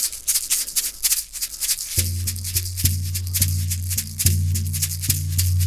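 A shamanic rattle-and-drum-beater combination, held for the most rattle, is shaken in a quick rhythm on its own. About two seconds in it starts striking a horse skin drum in a slow, steady beat, each deep, ringing drum stroke mixed with the rattle's shake.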